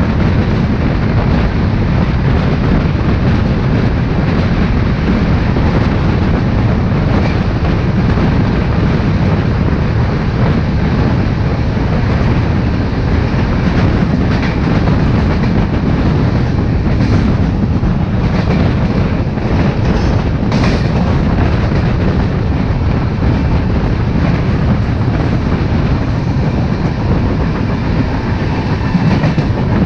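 Shatabdi Express train running at speed on the rails, heard from on board: a loud, steady rumble with wheel clatter and a few brief sharper rattles about halfway through.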